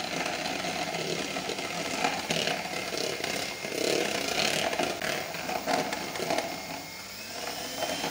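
Electric hand mixer running steadily, its twin beaters whipping cream in a plastic bowl toward stiff peaks.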